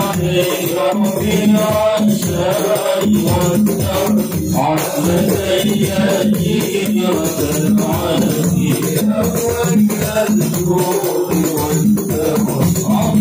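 A group of men chanting a devotional Arabic maulid song together over a steady percussion beat.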